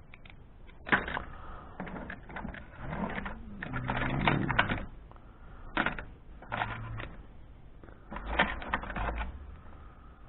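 Metal hand tools, screwdrivers among them, clinking and clattering against each other in irregular bursts as they are handled and sorted in a tool box.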